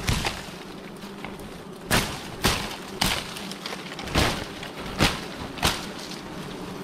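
Dry twigs and sticks snapping and cracking by hand, about seven sharp cracks at uneven intervals.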